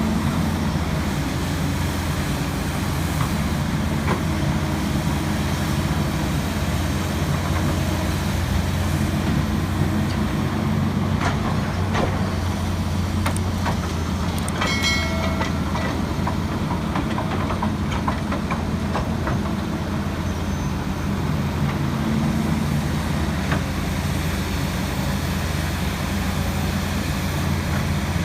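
Kobelco SK200 hydraulic excavator's diesel engine running steadily, with scattered clacks and knocks of the machine at work. A brief high squeal comes about halfway through.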